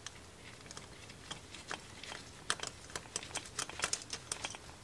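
Light metallic clicks and ticks of small hand tools against a motorcycle CV carburetor's body while the small jet is worked out. The clicks are sparse at first and come thicker in the second half.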